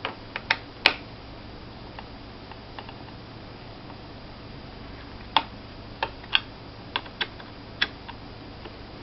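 Sharp, irregular clicks and taps from a small Phillips screwdriver working the screws of the plastic hard-drive access panel on a Toshiba Satellite laptop's underside. A cluster of clicks comes in the first second, then a quiet spell, then several more scattered clicks from about five seconds in.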